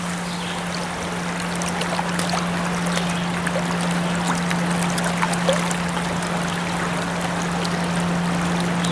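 Steady rush of flowing stream water, with a few faint ticks and a constant low hum underneath.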